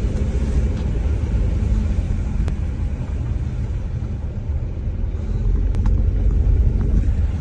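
Road noise inside a moving car on a wet road: a steady low rumble with tyre hiss, and a couple of faint ticks.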